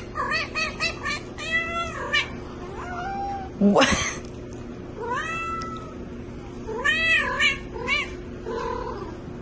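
A cat meowing over and over: a quick run of short meows in the first two seconds, then longer, drawn-out meows every second or two.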